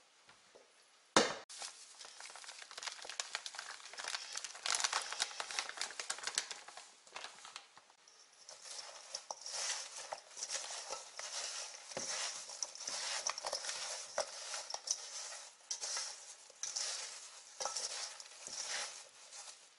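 Sliced quince and granulated sugar being tossed together by hand in a stainless steel bowl: a continuous gritty rustle and crunch of sugar and fruit slices, with small knocks against the bowl. A sharp knock about a second in.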